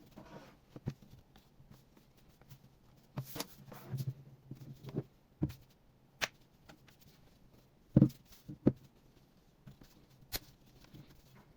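Scattered clicks, taps and light scraping from handling the plastic and metal parts of an opened laptop, with two sharper knocks a little past the middle, over a faint low hum.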